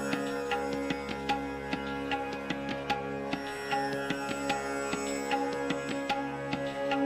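Instrumental background music in an Indian classical style: a steady drone under quick plucked-string notes and light hand-drum strokes.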